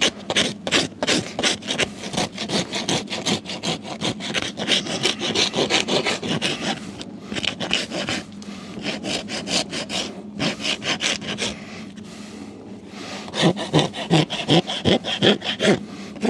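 A farrier's hoof rasp scraped in quick repeated strokes across the bottom of a thoroughbred's front hoof, levelling the foot before shoeing. The strokes come about three a second, with short breaks about seven and twelve seconds in, and are loudest near the end.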